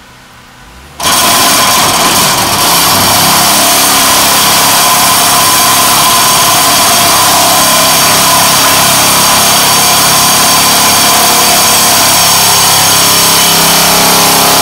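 Excavator-mounted vibratory pile driver starting up about a second in and running at a steady, loud buzzing drone as it drives a bridge pile into the ground, then cutting off abruptly near the end.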